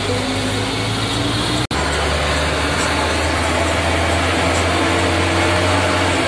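Bus engine running steadily under load while climbing a hill road, a low drone heard inside the cabin with road noise. The sound cuts out for an instant about a second and a half in, and the low drone comes back stronger.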